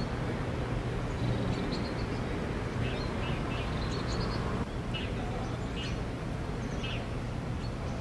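Small birds chirping in short, high calls every second or so, over a steady low hum of outdoor background noise.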